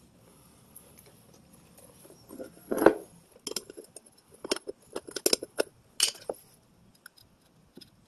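Short metallic clicks and clinks as fuel injectors and their retaining clips are worked off the fuel rail with a screwdriver, with one louder knock about three seconds in.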